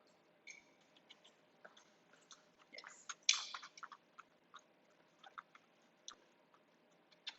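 A dog chewing treats: faint, scattered crunches and small clicks, the loudest about three seconds in.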